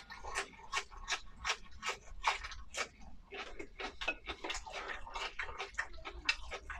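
Close-miked chewing of braised pork rice: quick wet mouth clicks and smacks, about three a second.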